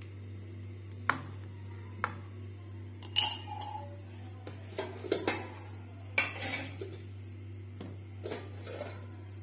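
Metal spoon clinking and scraping against a steel plate while spreading pizza sauce over the dough: a handful of sharp clinks and short scrapes, the loudest about three seconds in, over a steady low hum.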